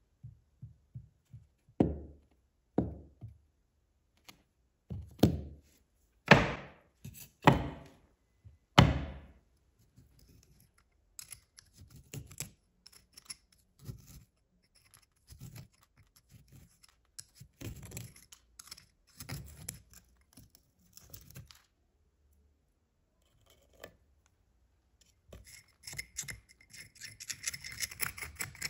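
A rusted iron hammer head knocks heavily on a wooden board about half a dozen times. A thin metal pick then scratches and pries crumbling, rotted wood out of the hammer's eye in many small scrapes, growing busier near the end.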